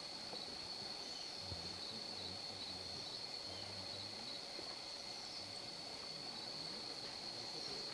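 Steady, high-pitched insect drone, one unbroken buzzing tone, over faint forest ambience.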